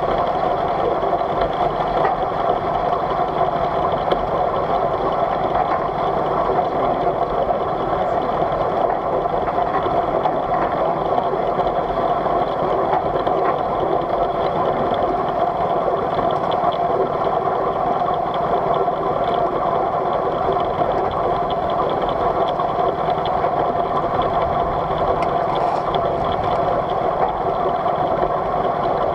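Polly V miniature live-steam locomotive running along its track, heard from the footplate: a steady, fast mechanical running noise from the engine and wheels, with no pause or change.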